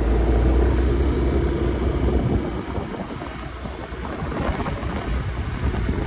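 Vehicle engine running with low rumble and road noise while under way; a steady engine hum fades after about two seconds, leaving rougher rumbling.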